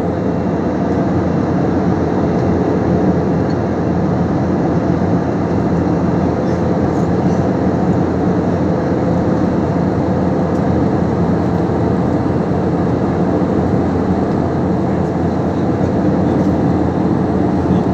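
Steady drone of an airliner cabin in flight: engine and airflow noise, with a faint steady hum running through it.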